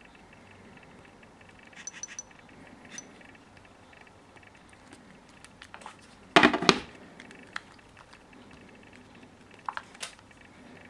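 Scattered light clicks and clinks of hard objects being handled, with a louder clatter of two quick knocks about six and a half seconds in.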